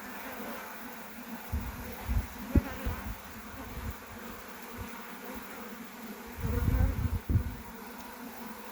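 Honeybee colony in an opened hive buzzing as a steady hum. Low rumbling bumps break in about a second and a half in and again about two-thirds of the way through.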